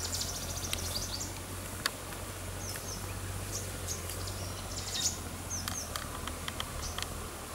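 Wild birds chirping in the scrub: many short high calls, some sweeping in pitch, scattered throughout. A few sharp clicks and a steady low hum run underneath.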